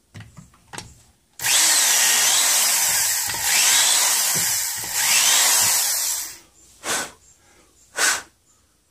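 Corded electric drill boring into the end grain of a wooden hoe handle held in a vise, running steadily for about five seconds with two brief dips in load, then two short bursts about a second apart.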